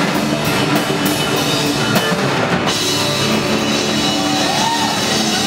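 Hardcore punk band playing live: loud distorted guitars and bass over drums with steady cymbal crashes. The drums and cymbals stop suddenly about two and a half seconds in, leaving the guitars sustaining.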